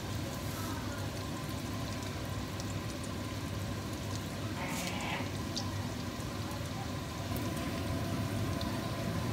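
Spring rolls deep-frying in a pan of hot oil: a steady sizzle with scattered small crackles, and a short louder hiss about five seconds in.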